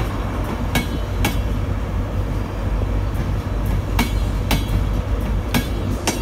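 Passenger train coaches rolling past close by, their wheels clacking sharply over rail joints, often in pairs, above a steady low rumble.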